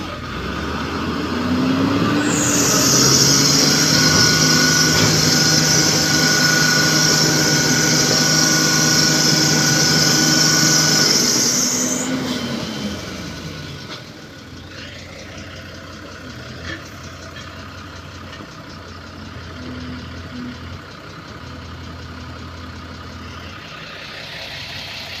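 UD Trucks dump truck's diesel engine revving hard under load as the truck labours through deep mud ruts, with a loud high hiss over it. About twelve seconds in the revs die away and the engine runs on low and quieter.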